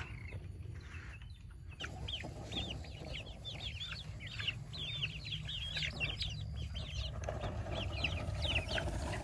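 A flock of young red pullets cheeping and clucking as they peck at scattered treats: many short, high calls overlapping, starting about two seconds in, over a low steady rumble.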